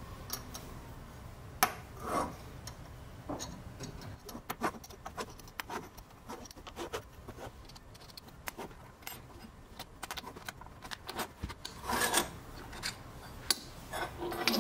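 Aluminium corner clamp blocks, screws and frame bars being handled on a wooden workbench: scattered light clicks, knocks and scraping of metal on metal and wood. The clusters are busier about two seconds in and again about twelve seconds in.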